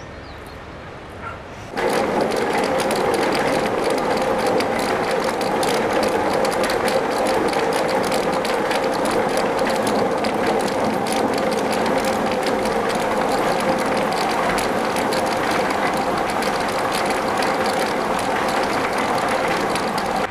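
Machinery running steadily with a dense, fast rattle and a constant hum, starting abruptly about two seconds in.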